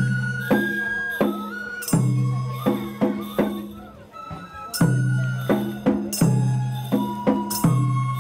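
Japanese festival music: a bamboo transverse flute plays a thin, high melody over struck percussion, which hits about once or twice a second and rings on after each strike.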